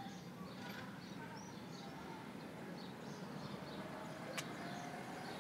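Small birds chirping again and again over a steady low rumble, with one sharp click about four seconds in.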